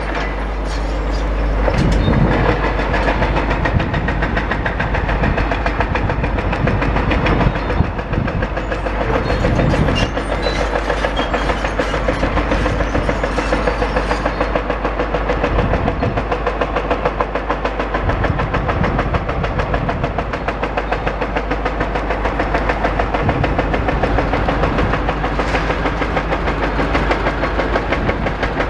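Demolition excavator at work: a fast, steady rhythmic clatter runs throughout, with a couple of heavier low rumbles about two and ten seconds in.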